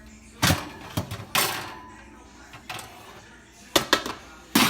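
A series of short knocks and scrapes, as of things being handled and set down. The loudest and longest one starts near the end.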